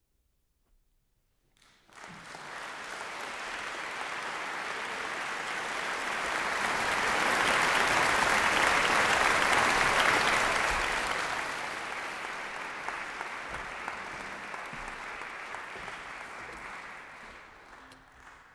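Concert audience applauding. It fades in about two seconds in, swells to its loudest around the middle, then slowly dies away toward the end.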